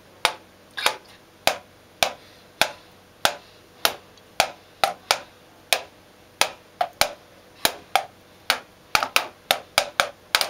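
Wooden drumsticks tapping the rubber pads of a video-game drum-kit controller, one sharp click at a time. The hits come about two a second and quicken into quick runs near the end.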